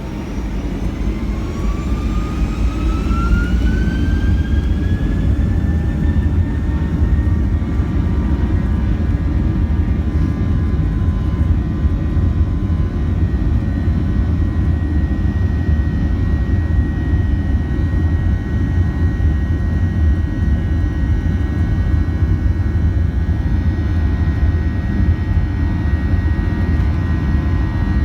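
Boeing 737-800's CFM56-7B turbofan engines spooling up to takeoff thrust: a whine rising in pitch over the first several seconds, then holding steady over a loud, even rumble.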